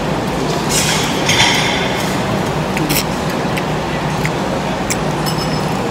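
Cutlery and dishes clinking at a meal over steady room noise: a cluster of clinks about a second in, then single light clicks every half second or so.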